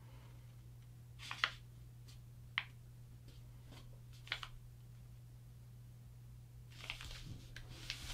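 A sheet of paper being folded and creased by hand: three short, sharp swipes of fingers along the fold about one and a half, two and a half and four seconds in, then soft rustling of the paper near the end.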